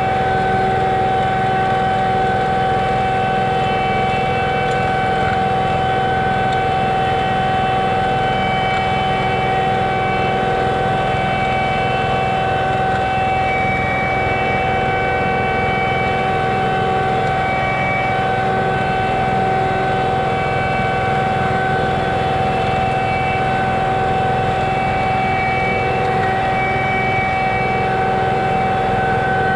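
John Deere 2038R compact tractor's three-cylinder diesel engine running steadily under load, pulling a middle-buster potato plow through the rows, with a steady whine over the engine note.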